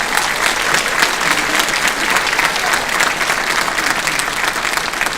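Audience applauding, steady clapping that begins to die down near the end.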